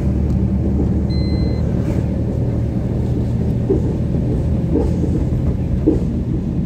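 Steady engine hum and road noise from the vehicle carrying the camera as it drives along at an even pace.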